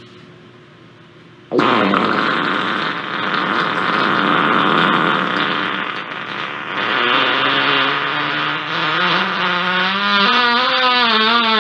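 A very long, loud fart that starts suddenly about a second and a half in and keeps going, its pitch climbing and wobbling toward the end.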